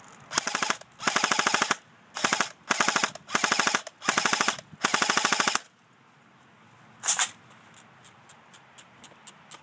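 G&G Combat Machine M4 airsoft electric gun firing on full auto in about seven quick bursts, running on a half-charged 9.6-volt battery. One more short burst comes about seven seconds in, followed by faint scattered clicks.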